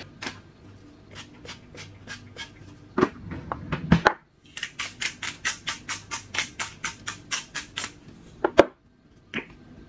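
Spice jars shaken over a baking tray, rattling in quick, even strokes of about five a second, with a few louder knocks as the jars are handled.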